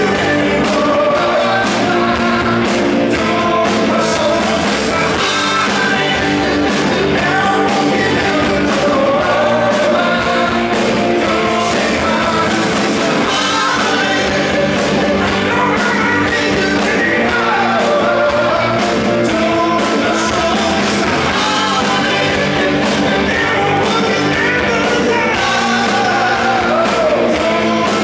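A rock band playing live, loud and without a break: a male singer's lead vocal over electric bass, electric guitars and drums.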